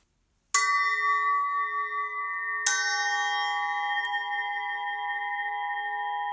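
Two strikes on metal bells about two seconds apart, each ringing on with several steady tones that overlap and sustain; the second strike adds lower tones to the first.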